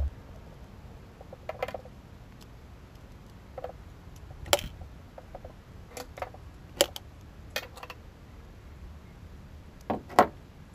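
Scattered clicks and light knocks of a screwdriver and metal outboard carburettor parts being handled, with two sharper knocks near the end as a carburettor is set down on the boat's deck.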